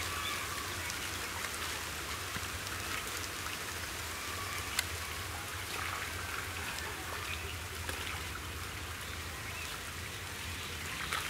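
Shallow muddy pond water splashing and trickling as people wade and grope through it by hand, a steady patter of small splashes and drips with one sharper click about five seconds in.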